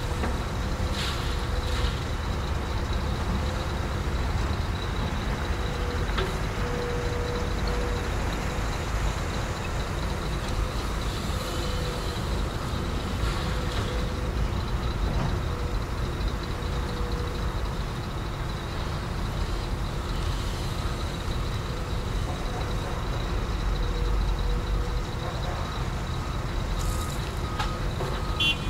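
Heavy diesel engines of an excavator and Shacman dump trucks running steadily at a low rumble while the excavator loads gravel into a truck.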